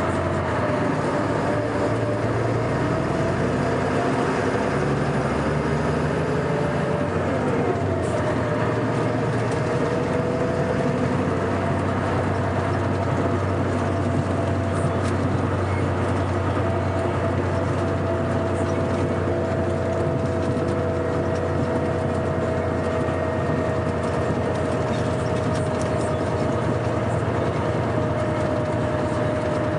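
Scania K420 coach's six-cylinder diesel engine running steadily under way. Its pitch shifts about seven seconds in, then holds steady.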